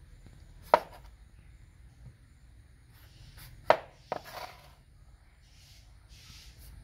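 Large kitchen knife cutting young green jackfruit on a wooden chopping board: a sharp knock of the blade on the board near the start, two more close together about midway, and softer slicing and scraping sounds between and after.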